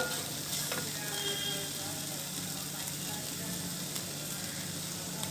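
Grated radish frying in ghee and oil in a kadai, a steady soft sizzle, with one sharp tap right at the start.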